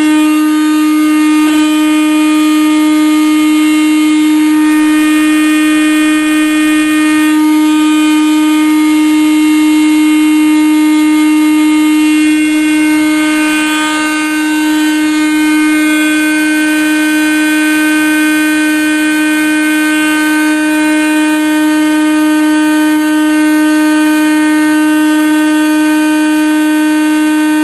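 Boiler heating system's plumbing giving off a loud, steady, horn-like tone at one pitch, the racket that keeps on while the system is brought up.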